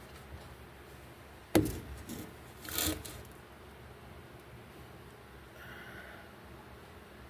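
A single sharp knock about one and a half seconds in, then a lighter knock and a short scraping rub just under a second later.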